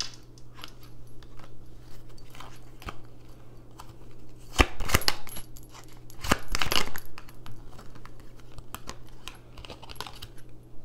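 Astrology oracle cards being shuffled and handled: a run of light clicks and snaps, with two louder flurries about halfway through, over a faint low hum.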